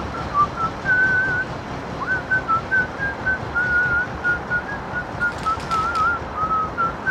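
A person whistling a tune: a string of short notes and a few longer held ones that waver in pitch.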